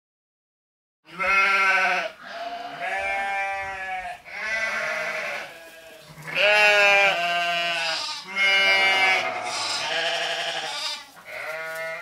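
A nanny goat bleating over and over, a run of long, quavering bleats one after another, starting about a second in. She is bleating in distress while caught in a barbed-wire gate.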